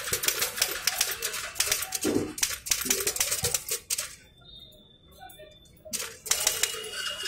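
Old manual Hindi typewriter typed on fast: a rapid clatter of keys and typebars striking the platen. The typing breaks off for about two seconds midway, then the clatter starts again.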